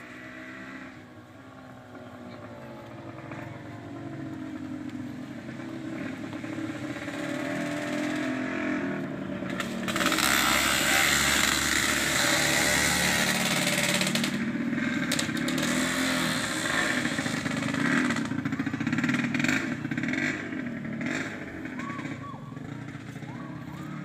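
An engine running, growing louder over the first ten seconds and loudest for a few seconds just after the middle, then rising and falling in pitch.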